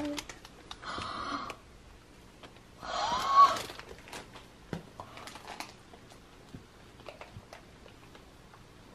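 A girl crying: two short breathy sobs, the second, about three seconds in, louder with a wail that rises in pitch. Between and after them come soft clicks and rustles of toys being handled.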